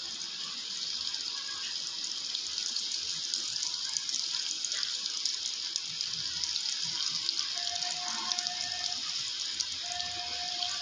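Breadcrumb-coated potato bites deep-frying in hot oil: a steady sizzle with fine crackling, as more pieces are dropped into the pan one by one.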